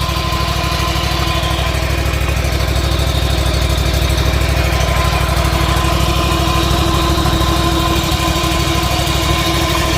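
Wright Stander B stand-on mower's engine running steadily, close up, with the noise of its transmission drive pulleys mixed in. The owner traces the noise to worn bearings in the V-pulley and the flat idler pulley on the transmission belt.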